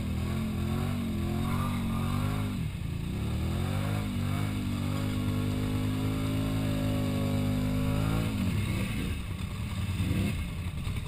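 Polaris 850 XP ATV's twin-cylinder engine revving and held at high rpm in deep mud. The pitch drops briefly about two and a half seconds in and falls away again about eight seconds in.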